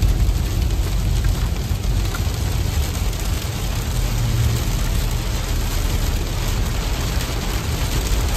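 Heavy rain with big drops pelting a moving car, heard from inside over a steady low road rumble.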